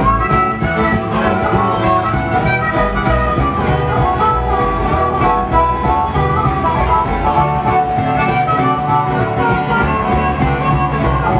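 Bluegrass band playing an instrumental break: a harmonica solo over upright bass and strummed acoustic guitar, keeping a steady beat.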